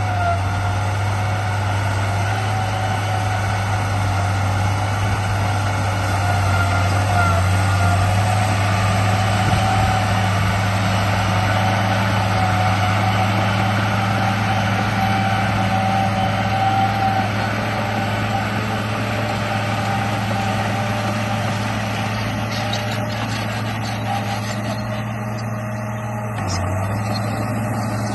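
RC bulldozer running: a steady, engine-like drone with a fainter whine above it.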